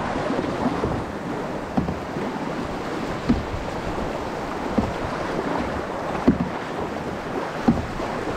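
Rushing whitewater of river rapids around a canoe, with wind on the microphone. A short paddle splash comes about every second and a half.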